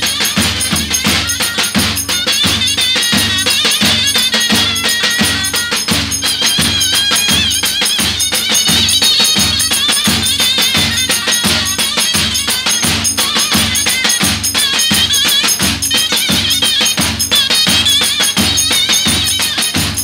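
Zurna playing a shrill, wavering folk melody over two davul bass drums beating a steady, even rhythm: Turkish village dance music.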